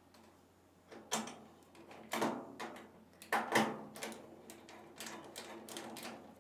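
Irregular light clicks and knocks, a few a second, from washer panel parts being handled and fitted as the machine is reassembled.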